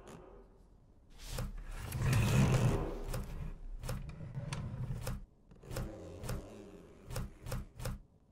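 A series of sharp clicks and knocks from the film's foley, uneven in spacing and coming quicker near the end, with a brief rushing sound about two seconds in.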